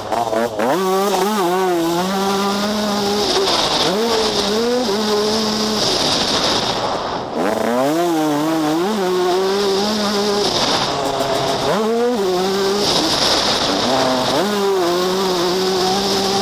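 Yamaha YZ125 two-stroke single-cylinder motocross engine under hard throttle, its pitch climbing steeply and dropping back about five times as the rider accelerates out of corners, with the throttle briefly cut about seven seconds in.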